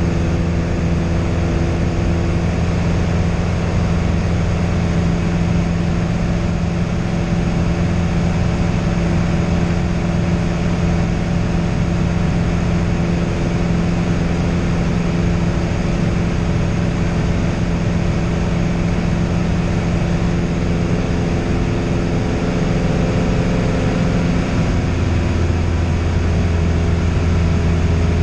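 Single-engine piston airplane's engine and propeller droning steadily in cruise, heard from inside the cockpit.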